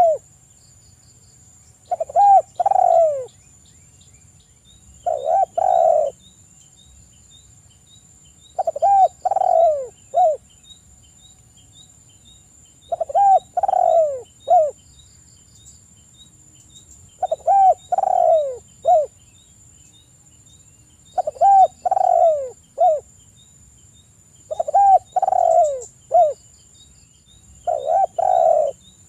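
Spotted dove cooing: its song phrase of three or four falling coos, the last one short, repeated about every three to four seconds, eight times.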